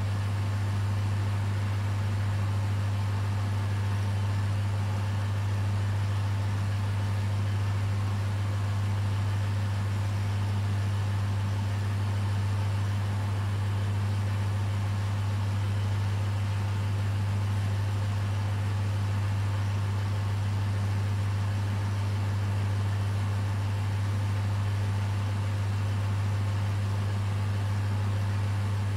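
Aquarium pumps running with a steady low hum over a constant hiss.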